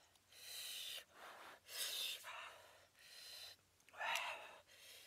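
A man breathing heavily and noisily, about five breaths in and out in quick succession.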